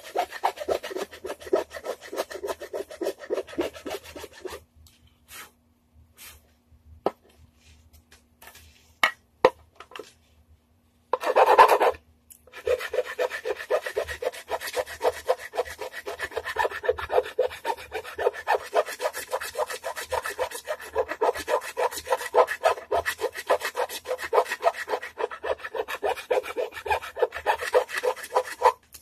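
The edge of a painted wooden guitar body being shaped by hand with rapid back-and-forth rasping strokes, wearing the paint off and rounding the square edge. The strokes stop for several seconds after about four seconds, leaving a few knocks and one short louder burst, then resume steadily.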